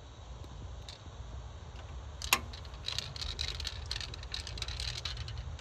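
Light metallic clicks and rattling from a screwdriver and screws being handled on a desktop computer case: one sharp click about two and a half seconds in, then a run of small ticks and rattles, over a steady low rumble.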